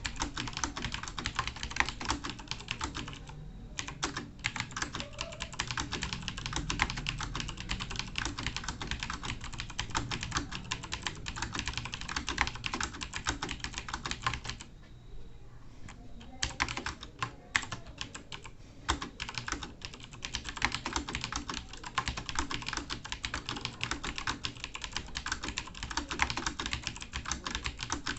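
Fast touch-typing on a computer keyboard: a dense, steady stream of key clicks. It breaks off briefly about three and a half seconds in, and again for about a second and a half near the middle.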